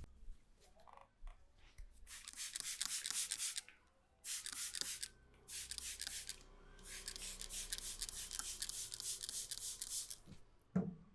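Hands rubbing and scratching through hair and scalp in a head massage: four rasping stretches of one to three seconds each, with short pauses between. A short thump comes near the end.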